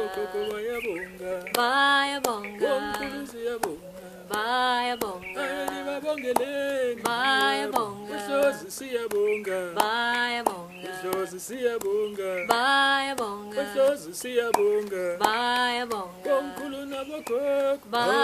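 A man and a woman singing a Zulu thank-you song together, one short phrase repeated about every three seconds, with soft hand claps.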